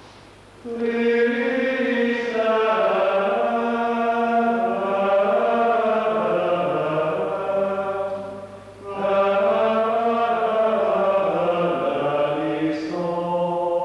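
Voices chanting a slow liturgical chant in two long sustained phrases, with a short break about eight seconds in.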